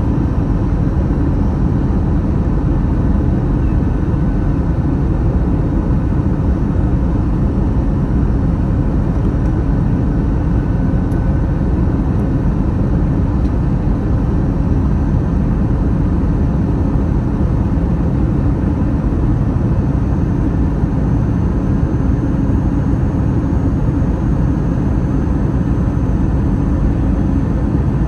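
Steady engine and airflow noise of an Airbus A321, heard from inside the passenger cabin as a constant low rumble with faint steady tones over it.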